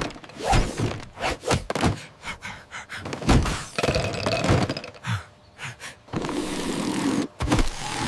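Cartoon impact effects: an irregular series of heavy thunks and knocks as big building blocks are knocked aside and tumble. A steadier noise takes over for the last two seconds.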